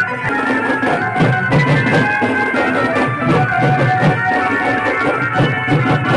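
Loud music with a steady drum beat about twice a second under held melody notes, played through horn loudspeakers.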